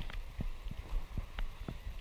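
Irregular clicking, several clicks a second, from the angler's pincers bouncing against the GoPro Hero4's plastic case as he casts, over a low rumble.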